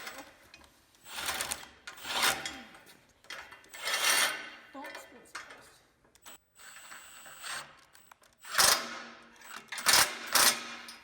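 Ratchet wrench clicking in several short runs as bolts are fastened on steel parts, with louder sharp bursts near the end.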